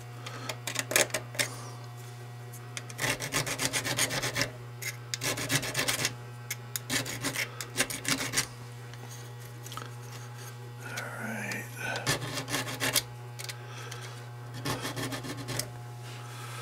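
A small hand hone stone rubbed back and forth on the steel hammer of an Uberti 1862 Police cap-and-ball revolver, in runs of quick short strokes with pauses between. The stone is taking off casting scale and breaking sharp edges to smooth the part.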